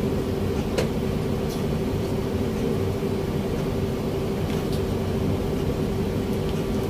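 Steady mechanical hum of room machinery, with one constant low tone and a low rumble, and a faint click about a second in.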